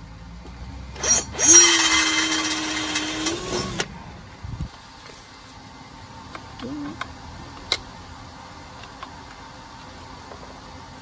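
Bosch cordless drill boring into rusty steel box section: a brief blip of the trigger, then the drill runs steadily for about two seconds with a whine and a hiss of the bit cutting, and stops. A thump and a sharp click follow.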